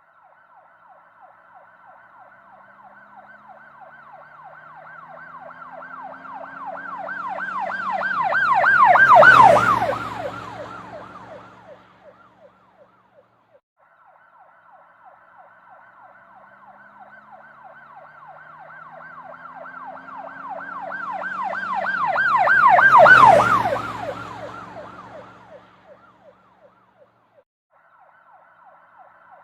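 Police car siren in a rapid yelp, rising and falling several times a second, as the car passes by twice. Each time the siren grows louder to a peak and then drops slightly in pitch and fades, with the vehicle's engine heard under it at its loudest.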